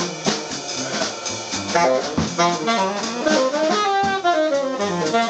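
Live jazz combo playing: a saxophone carries a line of quick, changing notes over a drum kit.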